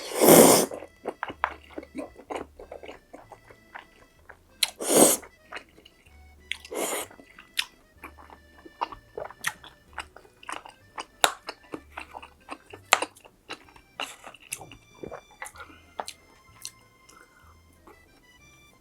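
Close-miked eating: loud crunching bites into fried food at the start, about five seconds in and about seven seconds in, with many small wet chewing clicks in between.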